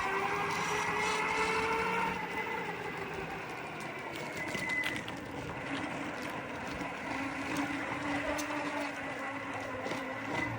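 Belt-driven electric skateboard motor whining over the rumble of the wheels on pavement. The pitch rises as the board accelerates for about two seconds, then drops and holds lower. There is a metallic grinding under acceleration, which the rider puts down to the motor, since new pulley and wheel bearings and new belts have not cured it.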